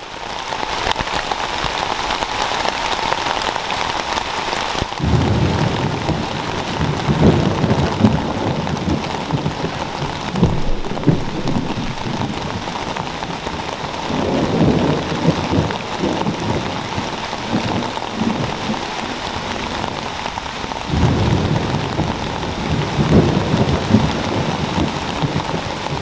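Heavy rain pouring down steadily in a thunderstorm. Thunder rumbles three times: about five seconds in, around the middle, and again near the end.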